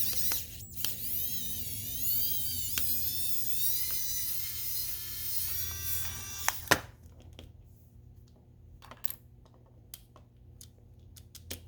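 Small electric screwdriver whining as it backs a screw out of a toy-train motor housing, its pitch wavering for about six seconds, then a sharp click followed by faint small clicks of parts being handled.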